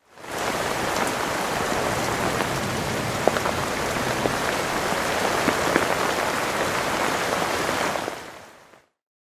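Steady rain-like hiss scattered with small crackles and ticks, fading in at the start and fading out near the end: an outro sound effect laid over the animated end card.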